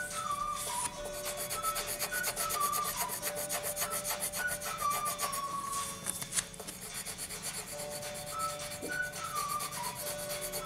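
Coloured pencil scratching rapidly back and forth on paper in quick shading strokes. A faint tune of short descending notes repeats behind it.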